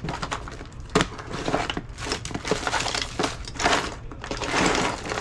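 Crinkling and rustling of packaging as flashlights are handled, with a sharp knock about a second in.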